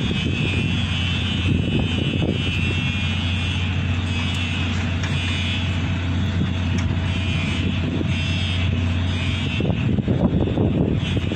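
Steady low engine hum, with a high hissing whine over it that stops about ten seconds in, and wind rumbling on the microphone that picks up near the end.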